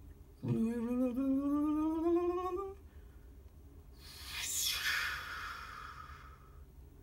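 A voice hums one long note that slowly rises in pitch for about two seconds. A couple of seconds later comes a whooshing hiss that sweeps down in pitch and fades out.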